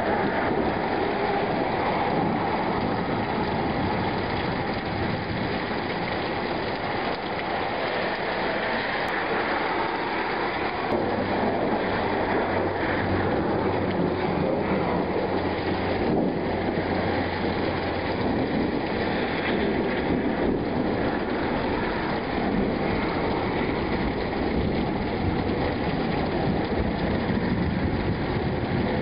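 Rain falling steadily during a thunderstorm, with a low rumble of thunder about a third of the way in.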